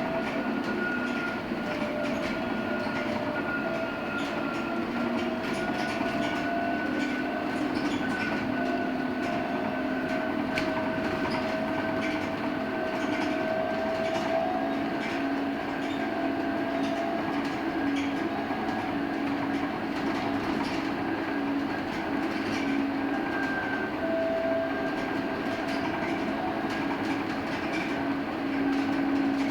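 Cabin sound of a LiAZ-6274 electric bus under way: the electric traction drive whines in several steady tones that drift slightly in pitch, over road and tyre noise with light rattles.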